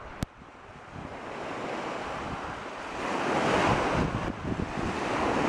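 Lake waves washing onto a pebble shore, with wind buffeting the microphone. The surf grows louder about three seconds in. There is a short click near the start.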